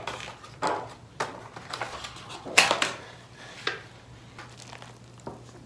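Takeout food packaging being handled: a cardboard box opened and an aluminium foil tray with a plastic lid lifted out and uncovered, giving a string of rustles, crinkles and light clatters, the loudest about two and a half seconds in.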